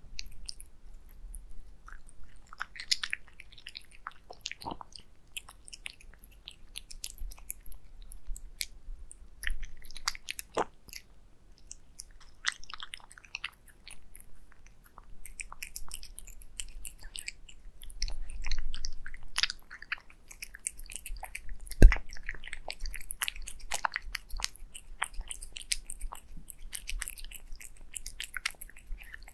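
A cat eating wet food from a glass plate, close up: a quick run of wet chewing, smacking and licking clicks. About two thirds of the way through there is one sharp knock, the loudest sound.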